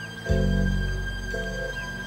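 Background score music: a deep bass note struck near the start that slowly fades, with a short chord repeated above it and a high held tone.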